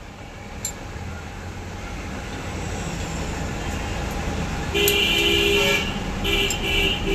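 A passing road vehicle's rumble grows louder, then its horn sounds loud and steady about five seconds in, breaks off briefly and sounds again near the end.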